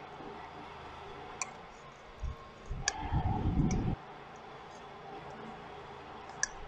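Spoon clicking a few times against a bowl as a marinade is stirred, with a low rumble on the microphone for about two seconds in the middle.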